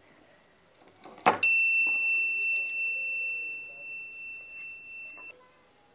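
A single sharp strike about a second in, followed by one clear, high, bell-like ring that slowly fades and cuts off suddenly about four seconds later.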